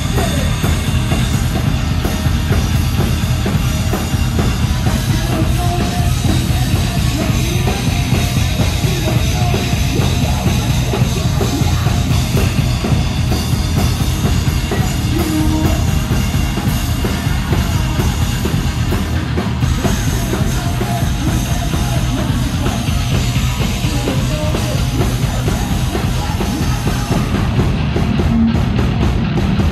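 Heavy rock band playing live and loud: bass guitar and electric guitar over a full drum kit, steady and dense with no break.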